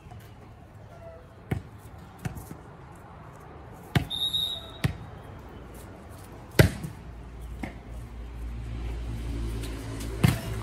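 Volleyball being struck hand-on-ball, about seven sharp slaps spread through a rally; the loudest, likely a spike, comes about two thirds of the way through. A short high whistle sounds about four seconds in.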